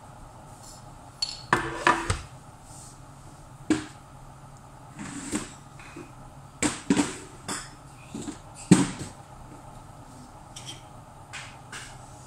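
Irregular knocks and clatters of dishes, pots and utensils being handled, several in quick succession, with the sharpest knock about nine seconds in. A low steady hum runs underneath.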